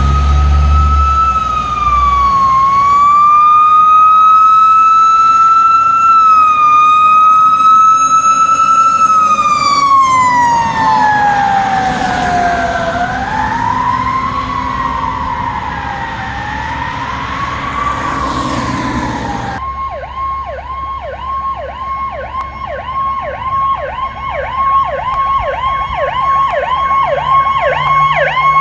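Emergency vehicle siren sounding a slow wail. It holds high, then falls away and rises and falls again in long, slow sweeps. About two-thirds of the way through it switches abruptly to a fast yelp of two or three whoops a second.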